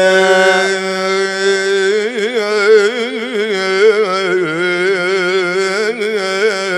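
A male voice sings a long wordless, ornamented vowel of a mawwal, its pitch wavering and curling over a steady held note beneath.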